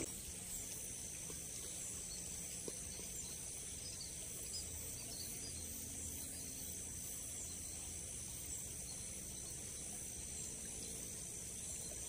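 Steady high-pitched chorus of insects over a faint low background rumble.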